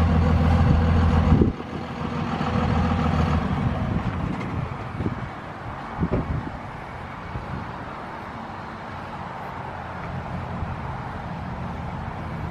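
Truck engine running at idle, louder for the first second and a half, then a steady lower hum with a couple of brief knocks in the middle.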